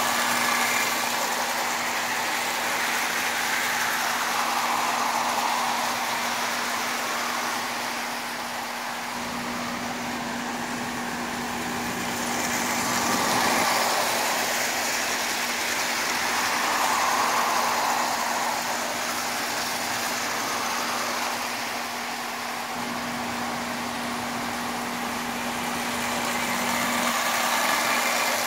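Marx Commodore Vanderbilt tinplate toy locomotive running on three-rail tin track with a long string of tin lithographed cars: a continuous motor whir and rattle of metal wheels on the rails over a steady low hum. It swells louder several times as the train passes close by.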